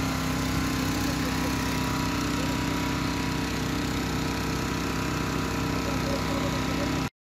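Small engine running steadily at a constant speed, stopping abruptly near the end.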